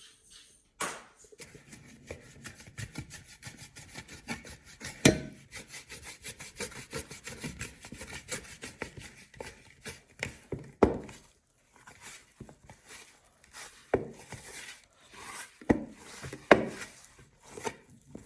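Kitchen handling sounds: steady rubbing and scraping on a wooden surface, broken by several sharp knocks, the loudest about five seconds in and near the end.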